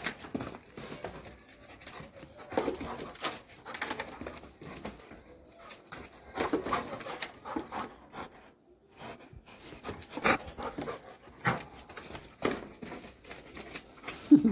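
Doberman panting in uneven bursts, with scattered short clicks and a brief loud sound near the end.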